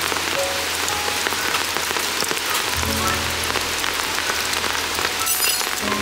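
Heavy rain falling steadily, a dense hiss with many sharp drop ticks close by. Soft background music with held low notes plays underneath.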